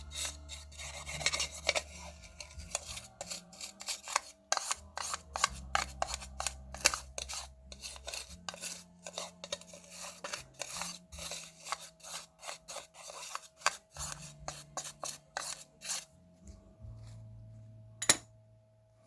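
Rapid scraping, rubbing and clicking of small tools on cassette Walkman parts during repair, with a faint steady hum underneath. It thins out after about sixteen seconds, with one sharper click near the end.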